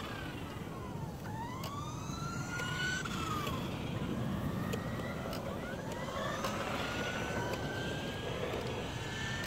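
RC cars' motors whining as the cars drive across the lot; the pitch drops about a second in as a car slows, then climbs over the next two seconds as it speeds up, and climbs slowly again from about six seconds on.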